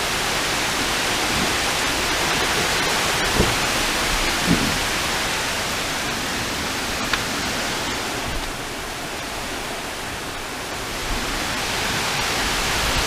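Heavy tropical-storm rain pouring down in a steady hiss. It eases a little past the middle and then builds again, with a few faint knocks.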